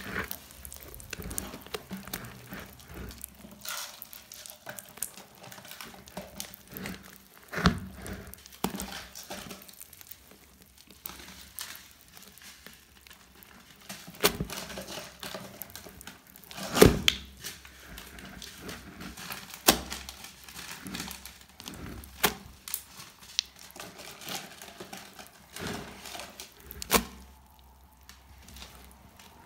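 Slime mixed with small beads being kneaded and pressed, giving irregular crackling and clicking, with a few louder clicks now and then.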